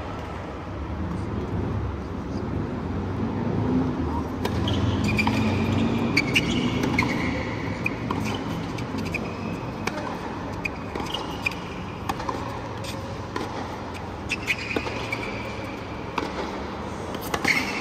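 Tennis point on a hard court: a serve followed by a rally, with sharp pops of racquets striking the ball every second or so and short squeaks of shoes on the court, over a low murmur from the stadium crowd.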